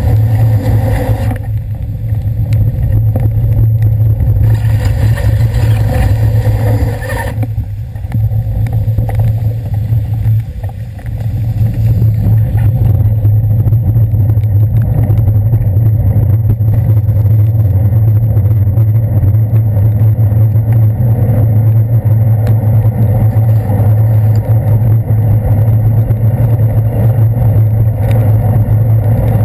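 City traffic heard from a moving bicycle through a handlebar-mounted GoPro's waterproof housing: a steady loud low rumble of wind and road vibration on the housing, with cars and buses running close by on wet streets.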